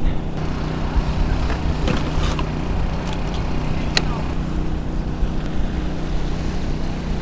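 Small Honda 2000 portable generator running with a steady hum, with a few light clicks from a plastic tackle box being handled, the sharpest about four seconds in.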